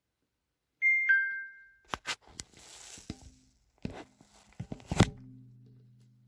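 Samsung Galaxy S7 edge notification sound played through the phone's speaker: a short two-note falling chime, followed by a run of sharp clicks and knocks over a brief hiss, ending in low tones that fade away.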